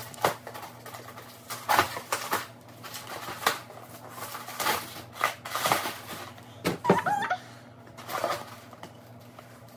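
Irregular rustling and crinkling of packaging as the boxed table parts are handled and sorted, with a short squeak about seven seconds in.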